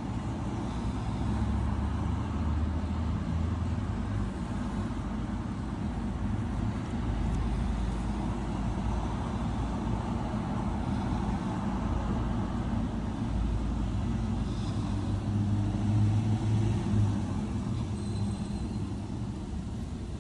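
Low, continuous rumble of road traffic, with vehicle engines running nearby. It swells briefly about three-quarters of the way through.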